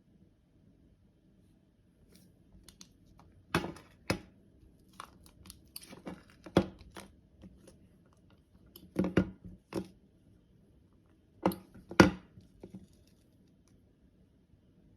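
Scattered sharp clicks and rustles in small clusters, with no ringtone, the loudest about twelve seconds in.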